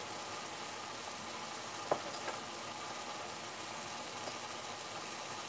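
Thick curry sauce sizzling and bubbling steadily in a frying pan, with one sharp click about two seconds in.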